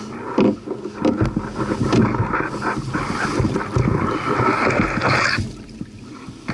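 A hooked redfish being landed beside a kayak: splashing, rattling and knocks that start about half a second in and stop suddenly near the end, once the fish is out of the water.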